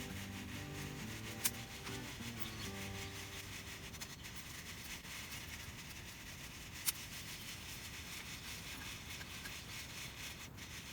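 Maragogype coffee beans hissing and rattling as they are shaken in a mesh strainer roaster over a campfire, a steady rubbing sound, with two sharp pops at about 1.5 s and 7 s.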